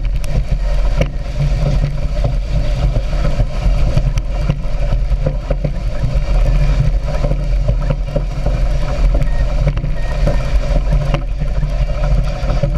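Speedboat engine running steadily and loudly.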